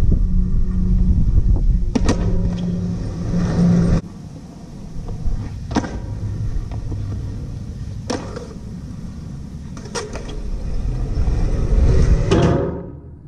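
Skateboard wheels rolling on concrete with a rumble, broken by four sharp cracks of the board popping and landing, about two seconds apart.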